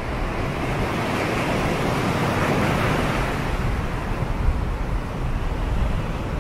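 Rushing surf and wind noise: a steady wash that swells to a peak about two to three seconds in and eases off, over a low rumble.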